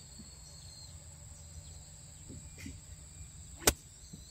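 A golf club striking a golf ball once on a swing: a single sharp, short click near the end, over a faint steady background hum.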